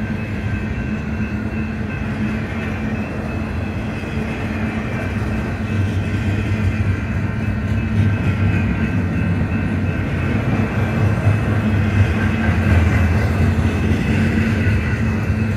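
Double-stack intermodal freight cars rolling past, a steady rumble of steel wheels on rail that grows louder about six seconds in.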